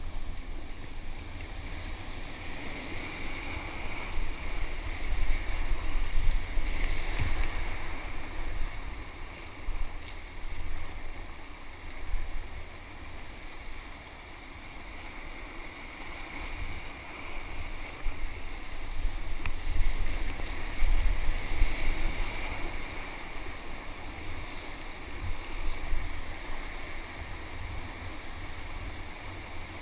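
Rushing whitewater of a river rapid around an inflatable kayak, with wind rumbling on the microphone. The water noise swells louder about five seconds in and again about twenty seconds in.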